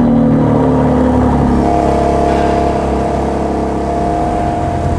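BMW M3 G80 Competition's twin-turbo straight-six running through a Milltek aftermarket exhaust, just after start-up: the revs fall from the start-up flare over the first couple of seconds, then it idles steadily.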